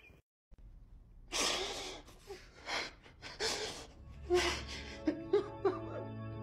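A person crying in several heavy, gasping breaths. About two thirds of the way through, soft music with a held chord comes in underneath.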